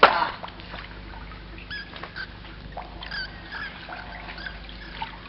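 Water dripping and trickling in a cave, with short high plinks scattered through it. It opens with a sudden loud noise that dies away quickly.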